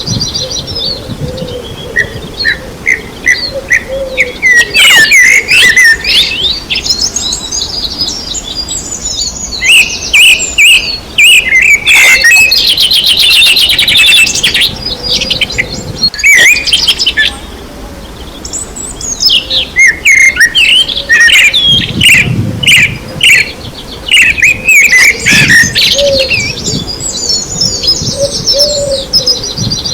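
A chorus of several songbirds chirping and singing, with fast trills and sweeping whistles coming in waves and a couple of short lulls. Low cooing notes sit beneath them at the start and near the end.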